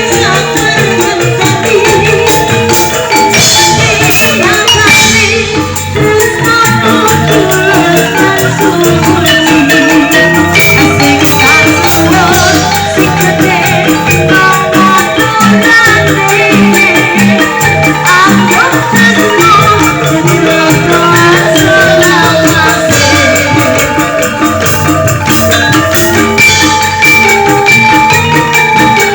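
Live campursari music with angklung, the melody carried by bamboo rattle tones over a steady percussion beat, played through a PA sound system.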